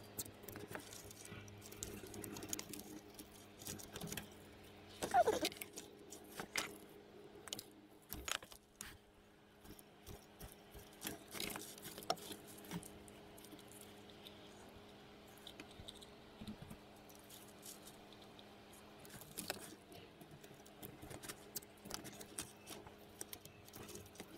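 Gloved hands handling the loose wires of a car's wiring loom: scattered small clicks, rattles and rustles, with a short rising squeak about five seconds in, over a faint steady hum.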